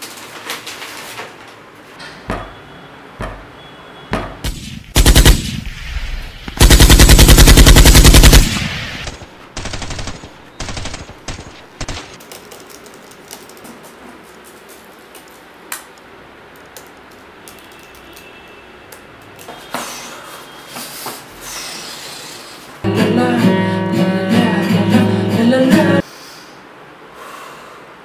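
A very loud rapid-fire burst like machine-gun fire, lasting about two seconds, comes a quarter of the way in after a shorter loud bang, with scattered clicks and taps around it. Near the end there are about three seconds of music.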